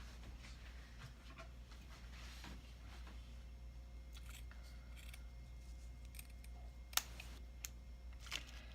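Scissors snipping and being handled, faint scattered clicks and rustles, with one sharper click about seven seconds in.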